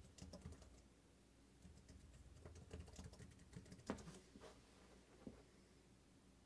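Faint, irregular key clicks from typing on a Lenovo ThinkPad P50 laptop keyboard, a few keystrokes at a time with short pauses.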